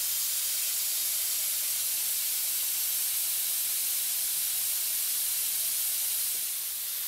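Steady high hiss of air rushing through a grit-blasting plant's cyclone separator and hoses, easing slightly near the end.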